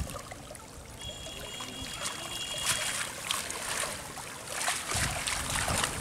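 Water splashing and dripping as wet cast nets are gathered and dragged through shallow river water, becoming busier after about two seconds.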